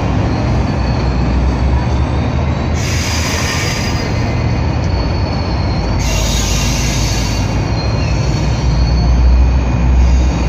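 GO Transit bilevel passenger coaches rolling along the track with a steady low rumble and a thin high wheel squeal. Two short bursts of hiss come about three and six seconds in.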